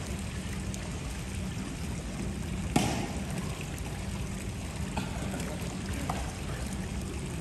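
Pool water sloshing and splashing around a wading player. A sharp slap of hands striking a volleyball comes about three seconds in, and lighter taps follow near the end.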